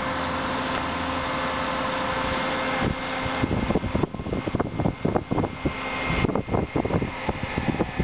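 Cherry picker's engine and hydraulic drive running with a steady hum, which cuts off about three and a half seconds in. After that, wind buffets the microphone in irregular gusts.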